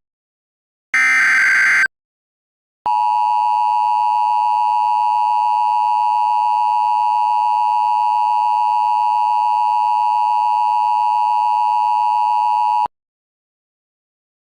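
Emergency Alert System tones: a last one-second burst of the screeching digital SAME header data, then after a short pause the steady two-tone EAS attention signal (853 and 960 Hz together), held for about ten seconds before cutting off sharply.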